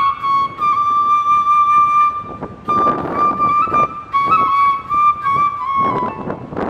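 Background music: a flute playing a slow melody of held notes that step up and down, with a few short bursts of rushing noise underneath.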